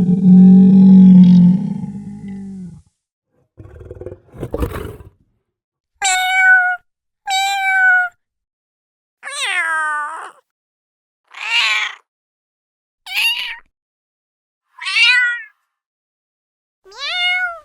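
A series of about seven separate domestic cat meows, each under a second long and at differing pitches, some held level and some falling. Before them, a low, deep roar dies away in the first three seconds, and a short rough noise follows about four seconds in.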